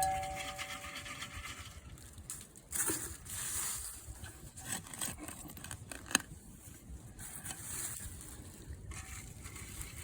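Loose dirt being scraped up and sprinkled into a trap bed, with gritty crunching and scraping and a louder rustle about three seconds in. A metal clink rings briefly at the start, and a sharp tap comes about six seconds in.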